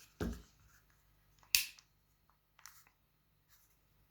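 Small plastic clicks and taps from a StarLine A94 car-alarm key fob being handled during reassembly: a soft knock just after the start, one sharp click about a second and a half in, then a few faint ticks.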